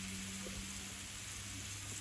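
Steady sizzling hiss of food frying on a hot pan, with a low steady hum underneath.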